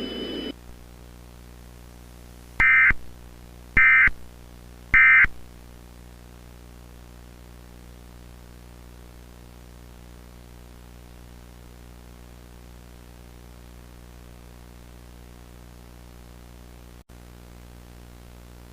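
Three short bursts of Emergency Alert System SAME data tones, about a second apart: the end-of-message signal that closes an EAS alert. A faint steady hum follows.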